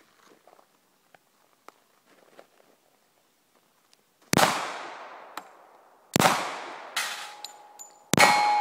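Colt Commander 1991 .45 ACP pistol firing four shots, spaced about one to two seconds apart, starting about four seconds in. After the last two shots, hit steel plates ring on with a steady tone.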